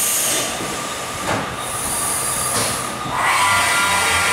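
CNC milling machine cutting metal under flood coolant: a steady hiss of coolant spray and cutting. About three seconds in, the cutter starts a squeal of several tones.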